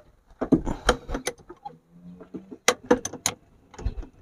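Metal hand tools clinking and clicking against each other and the engine's fittings in short, irregular clusters, with no engine running.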